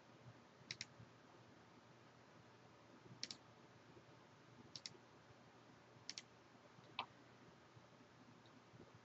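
Faint computer mouse clicks, about five of them spaced a second or more apart, most heard as a quick double click of press and release, over near-silent room tone.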